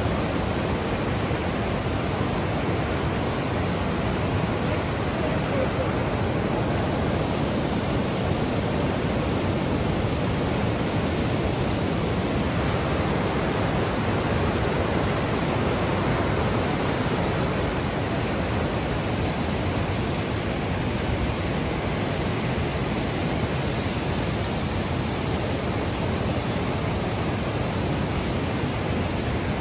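Class 6 whitewater rapids of the Niagara River rushing over and around boulders: a loud, steady, unbroken rush of churning water.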